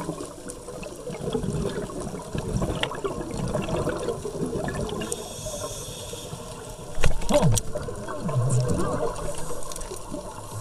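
Underwater bubbling and gurgling from a scuba diver's exhaled air bubbles, with a sharp knock about seven seconds in.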